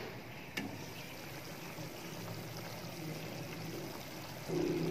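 Kofta curry gravy simmering in a wide pan, with a single click about half a second in as the glass lid is lifted. The simmering gets louder near the end.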